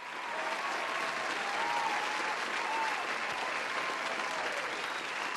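Steady audience applause with faint voices in the crowd.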